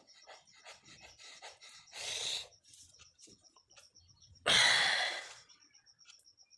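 A person breathing out hard twice: a short breath about two seconds in, then a longer, louder one about four and a half seconds in.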